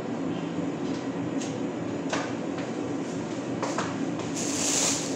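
A steady low mechanical hum, with a few light knocks in the first half. About four seconds in, a thin plastic bag starts crinkling loudly as it is handled.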